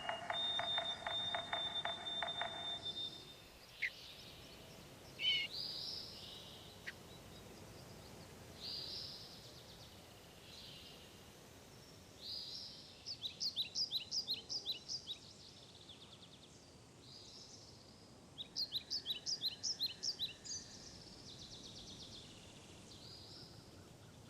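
Birds singing: a rapid buzzy rattle for the first few seconds, then scattered high chirps and whistles, with two runs of quick repeated notes, about five a second, around the middle and later on.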